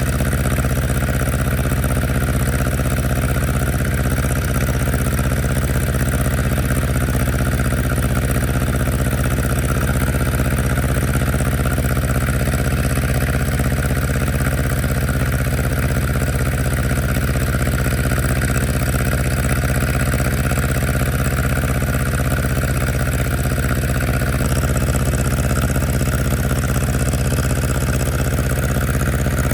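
Tractor engine running at a steady speed, with a slight change in its tone about 24 seconds in.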